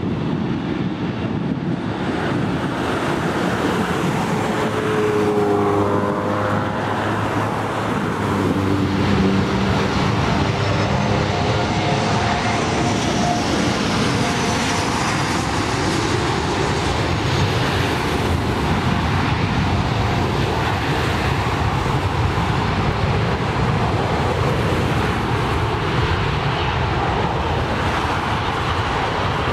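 Jet airliner engines, those of a Boeing 787, running with a loud steady noise as it taxis onto the runway; between about four and ten seconds in, whining tones slide up and down in pitch over the steady noise.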